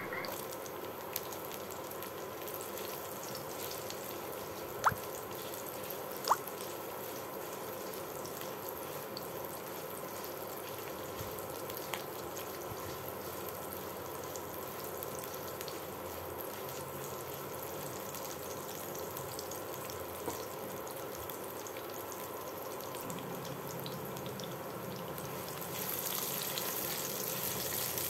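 Low sizzle of garlic, dried shrimp and scallions frying in a little oil in a nonstick wok, stirred with a silicone spatula, as the aromatics are cooked until fragrant. Two sharp knocks come about five and six seconds in, and the sizzle grows louder near the end.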